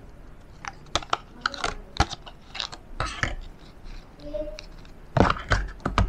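Clear plastic packaging of an M.2 SSD being handled: a run of irregular sharp clicks and crinkles, the loudest cluster near the end.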